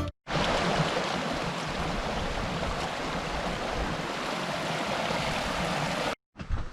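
Steady rush of running water, even and unbroken, which starts abruptly and cuts off after about six seconds.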